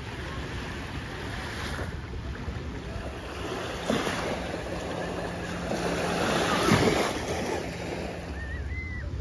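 Outdoor beach ambience: small waves lapping on the Lake Michigan shore, with wind buffeting the microphone. The sound swells to a louder rush about two-thirds of the way through.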